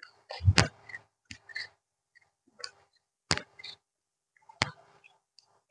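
A few scattered sharp clicks and knocks close to a clip-on lavalier microphone, the loudest with a dull thump about half a second in: handling and clothing noise on the mic.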